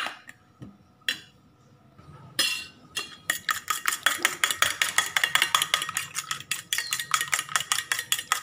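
Fork beating a raw egg in a stainless steel bowl: after a couple of scattered knocks, a fast, even run of clinking strokes, about seven a second, begins a few seconds in.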